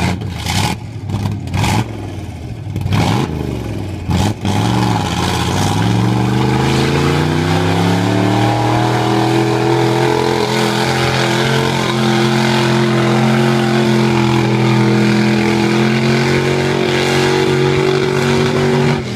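Cammed 383 small-block Chevy V8 in a mud truck, blipped up and down a few times, then revved up about six seconds in and held at high revs for about ten seconds as the 54-inch Boggers spin through deep mud, dropping off at the very end.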